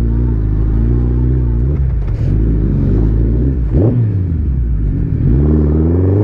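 Suzuki Hayabusa's inline-four engine under way on a loose dirt track, running steadily at first, then its revs rising and falling again and again as the throttle is worked, with a few sharp upward blips.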